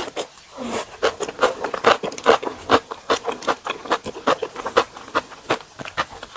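Close-miked eating sounds: wet chewing of spicy cabbage kimchi and ramen noodles, a quick run of mouth clicks and smacks about three a second.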